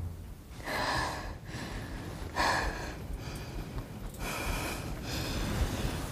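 A woman breathing heavily in distress: three long, breathy gasps, each about half a second to a second, coming roughly every one and a half to two seconds.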